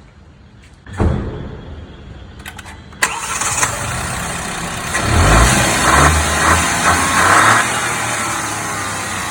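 Stock 2023 Hyundai Venue engine being started, catching with a brief flare about a second in. About three seconds in the sound suddenly gets much louder and runs steadily, with several short throttle blips, then settles back to a steady idle.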